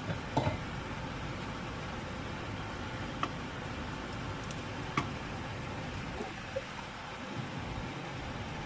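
A pot of coriander-leaf water boiling on the stove, a steady bubbling hiss, with a few light clicks scattered through it.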